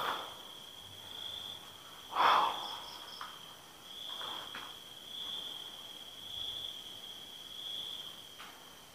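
Crickets chirring steadily in the night background, one high, even note that swells and fades a little. A short, soft noise about two seconds in is louder than the chirring, and a few fainter ones come later.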